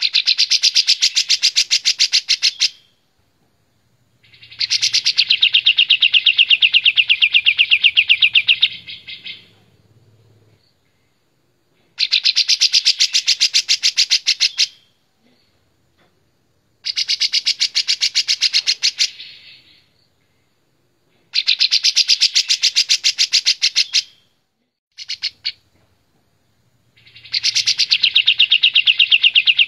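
Kapas tembak bulbul singing a loud, clear, rapid trill of evenly repeated notes, in bursts of two to five seconds broken by short pauses, about six times over.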